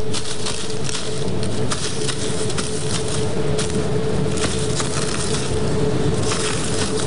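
Live Foley sound effects performed to a film clip: many irregular sharp clicks and knocks over a steady low rumble with a constant hum.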